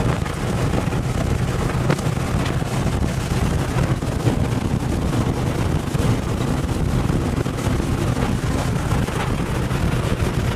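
Tornado winds rushing and buffeting around an armored tornado intercept vehicle, heard from inside the cabin as a loud, steady low rumble with a few faint knocks.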